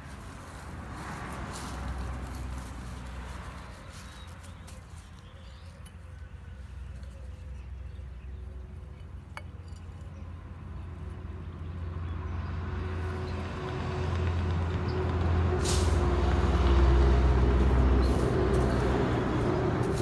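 Low rumble of a passing heavy vehicle that builds up over the second half and is loudest near the end, mixed with the scraping and clicking of a hand trowel digging in garden soil.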